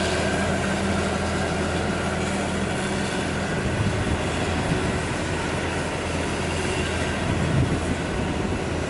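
2004 John Deere 9660 STS combine's diesel engine running steadily with a low hum as the combine drives slowly past.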